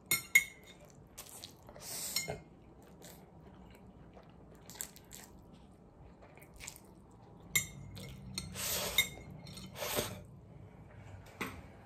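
Close-up eating sounds: spicy cold noodles (bibimmyeon) being slurped and chewed, with metal chopsticks clicking against a ceramic bowl. Near the end come a couple of louder slurps as the last noodles and sauce are sucked straight from the bowl.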